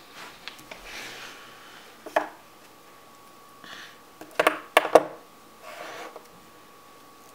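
Scissors and a roll of tape being picked up and set down on a hard tabletop: one sharp clack about two seconds in and a cluster of three louder clacks around the middle, between soft rustles of a hand brushing sheets of card.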